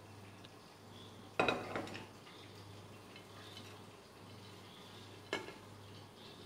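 Kitchenware knocks as spinach is loaded into a metal pressure cooker: a sharp clink of a glass plate and the cooker about a second and a half in, a smaller one just after, and another near the end.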